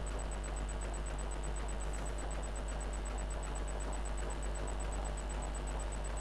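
Steady low electrical hum from a power-supply test bench under load, with a faint high-pitched whine above it; it holds unchanged throughout.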